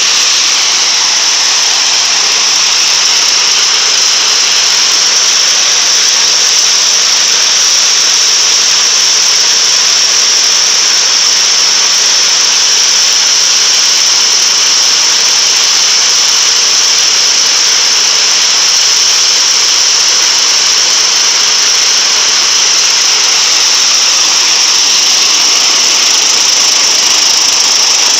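Engine-driven rice threshing machine running steadily, a loud continuous high-pitched whine over the hum of its motor.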